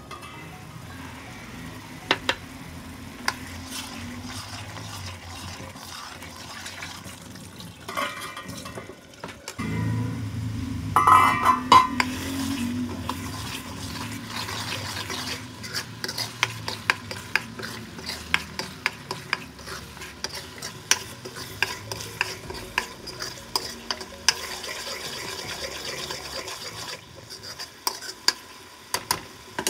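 Steel ladle stirring and scraping a thick frying masala with peas in a metal kadai: steady sizzling with frequent quick clicks and scrapes of metal on metal. A louder, ringing metal clatter about eleven seconds in.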